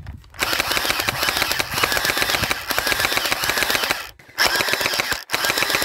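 Gel blaster firing full-auto: a rapid, even rattle of shots in a long burst, then two more bursts after short breaks about four and five seconds in.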